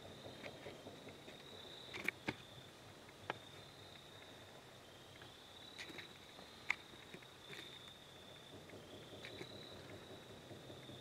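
Quiet woods with a faint steady high whine and a handful of sharp snaps in dry leaf litter: two close together about two seconds in, another a second later, and the sharpest near seven seconds.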